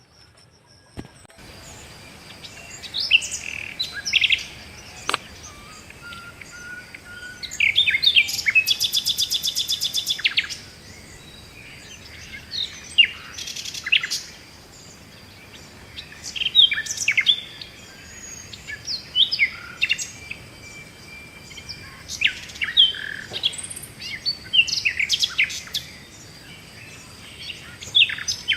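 Several woodland birds calling and chirping in short, scattered bursts, with a fast rattling trill about eight seconds in that lasts around two seconds.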